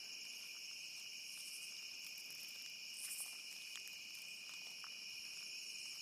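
Night insect chorus: a steady, high-pitched trilling that is very loud, with two short, higher buzzes a second and a half apart.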